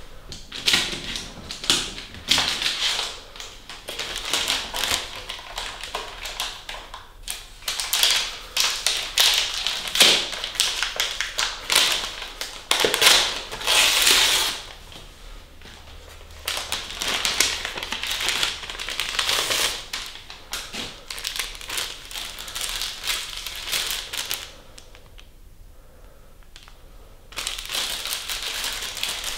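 Paper wrapper of a pack of sterile surgical gloves being torn open and unfolded by gloved hands, crinkling and crackling in irregular bursts. The crinkling stops for about three seconds near the end, then starts again.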